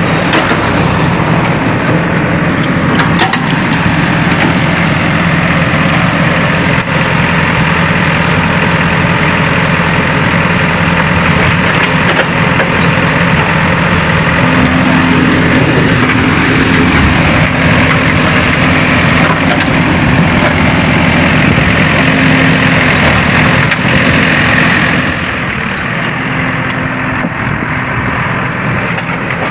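Heavy diesel machinery engine running steadily, easing off and getting quieter about 25 seconds in.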